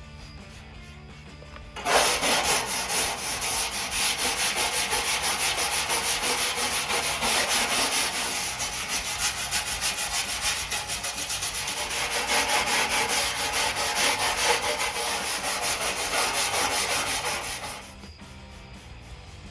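Steady abrasive scrubbing on sheet metal, sanding sound, starting abruptly about two seconds in and stopping shortly before the end.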